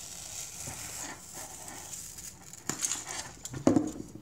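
Tape being peeled off a Holga's plastic camera body, with rustling and small clicks as the camera is handled, and one short, louder knock or thump about three and a half seconds in.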